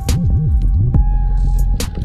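Electronic background music with a wobbling, sliding bass line and sharp percussion hits.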